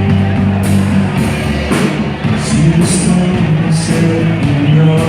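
Rock band playing loudly, with sustained bass notes and sharp hits about once a second.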